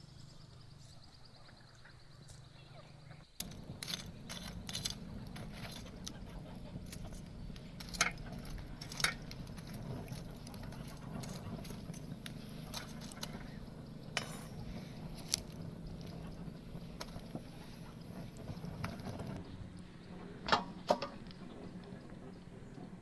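Glass jars clinking against each other and against hard surfaces, a few sharp clinks with lighter clicks between them, over a steady low hum that sets in abruptly about three seconds in.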